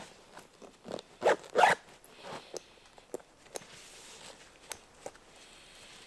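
Backpack zipper pulled shut in two quick loud rasps a little over a second in, then a softer pull, followed by scattered light clicks and rustles of the pack being handled.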